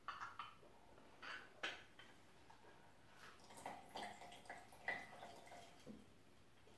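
Hand-held lime squeezer pressing a lime half over a glass: faint squishing and dripping of juice, with a few soft clicks of the squeezer.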